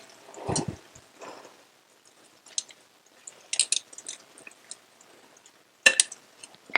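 Scattered light clinks and scrapes of a cooking utensil against a pan and plate while cooked chicken is served out, with a soft thump about half a second in.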